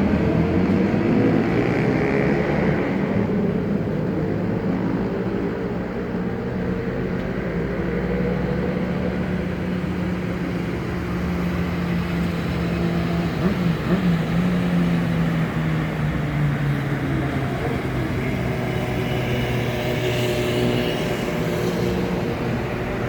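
Car engine running steadily in traffic, a low drone with road noise that shifts only slightly in pitch.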